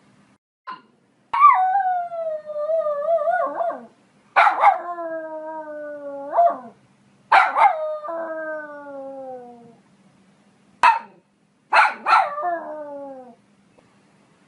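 Poodle barking and howling: three long cries, each starting with a sharp bark and sliding down in pitch over two seconds or more, then a few short yaps near the end and a shorter falling howl.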